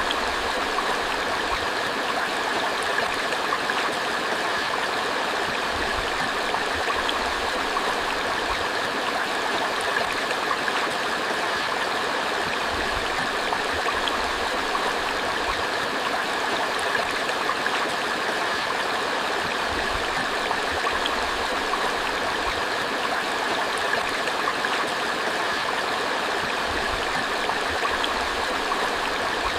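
Creek water flowing in a steady, unbroken rush, a constant smoothed stream sound with no change in level or character.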